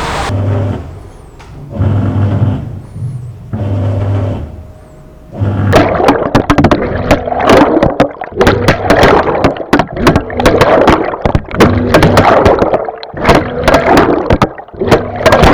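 Whirlpool 360 Bloom Wash top-loader's wash motor humming in short on-off bursts as it swings the pulsator left and right, the self-test's motor and pulsator check. From about six seconds in, the water in the drum is splashing and churning loudly, with the motor's hum still pulsing beneath.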